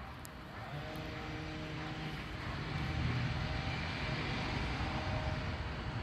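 Jet engine noise from a climbing Boeing 777-300ER's twin GE90 turbofans: a low rumble with faint steady whining tones above it, growing gradually louder.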